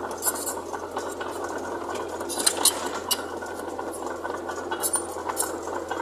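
Heavy diesel machinery running steadily, with scattered metallic clinks and rattles.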